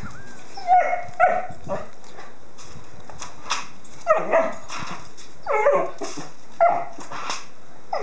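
German Shorthaired Pointer puppy giving a string of short, high yips and barks in clusters of two or three, play barking at an empty foil pie dish.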